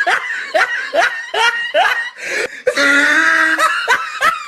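Laughter: a quick string of short laughs, each falling in pitch, over the first two seconds, then a longer drawn-out voice sound.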